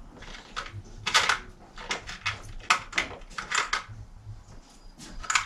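Hands working at a bicycle screw-on freewheel during reassembly: a string of short, irregular clicks and rustles, loudest about a second in.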